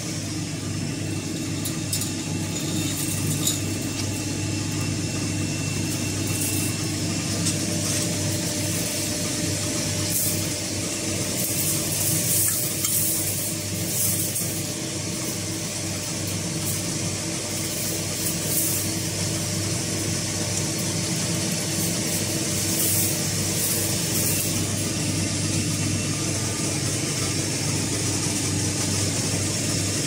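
Hydraulic cotton baler's machinery running with a steady low hum and an even hiss, with brief higher scratchy noises now and then.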